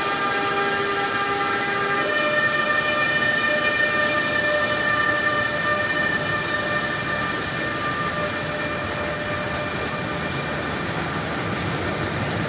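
Freight train of loaded car-carrier wagons hauled by an E.483 electric locomotive, running past with steady rolling noise. Several steady whining tones sit over the rolling; their pitch steps up about two seconds in, and they fade near the end.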